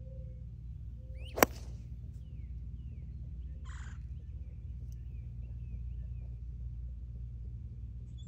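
Sharp crack of a 3-iron striking a golf ball off the tee, once, about a second and a half in, over a low steady background rumble.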